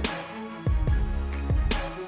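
Background music with a steady beat: deep bass-drum hits in pairs and bright cymbal-like hits over held chords.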